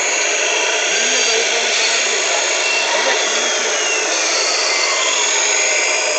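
Electric hydraulic pump of a 1:14.5 Wedico Volvo F12 radio-controlled dump truck running with a steady, drill-like whine as it holds the tipper bed raised to dump sand.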